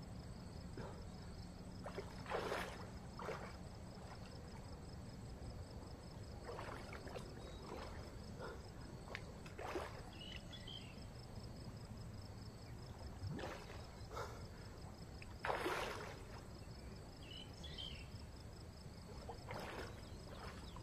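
Insects chirring steadily at a high pitch over a quiet background, with about eight brief soft swishes scattered through.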